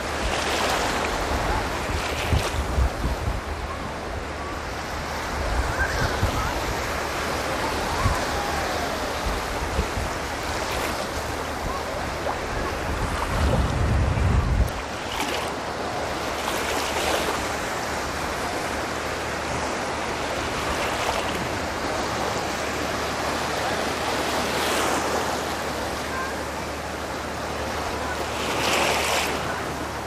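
Small Black Sea waves breaking and washing up the sand, in repeated swells over a steady hiss. Gusts of wind buffet the microphone a few times in the first half, the longest just before halfway.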